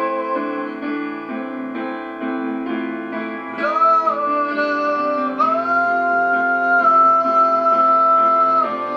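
A man singing long held notes of a worship song over instrumental accompaniment, his voice stepping up in pitch about four seconds in and then holding one long note until near the end.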